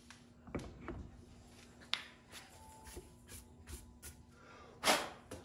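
Small knocks and taps of a wooden board being handled and set down on a workbench, with a faint steady hum under them and one louder rustling scuff near the end.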